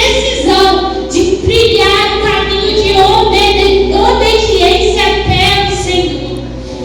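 A female voice singing a worship song in sustained, held notes.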